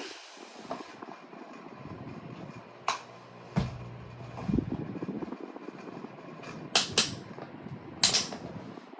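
Pelonis table fan running steadily on medium speed, with several sharp clicks and knocks scattered through it from its loose front badge rattling.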